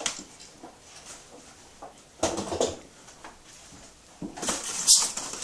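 Handling noise: two short bursts of rustling and scuffing, about two seconds in and again near the end, as a large airsoft light machine gun is lifted from its foam packaging and moved.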